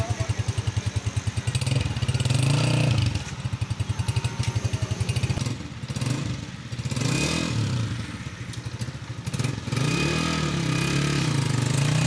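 Honda CG125's single-cylinder four-stroke engine idling with an even exhaust beat, then revved repeatedly, its pitch rising and falling with each throttle blip. A longer rev is held near the end.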